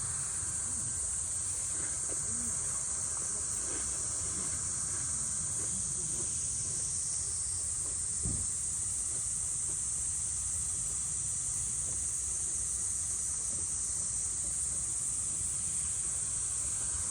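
Steady chorus of insects, crickets or similar, keeping up a high, even drone over a faint low rumble.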